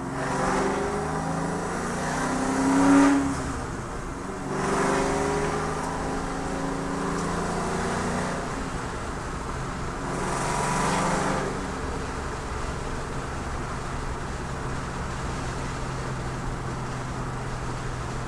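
1994 Mustang Cobra's 5.0 V8, with long-tube headers, an X-pipe and SLP Loudmouth mufflers, revved in several blips, the biggest about three seconds in and a last one near eleven seconds, then settling into a steady idle.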